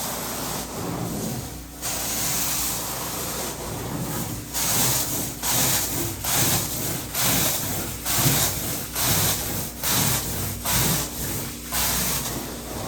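Carpet-cleaning tool worked back and forth over carpet in quick strokes, about two a second, each stroke a burst of hiss over a steady machine hum. The strokes begin a few seconds in; before that the hiss is steady.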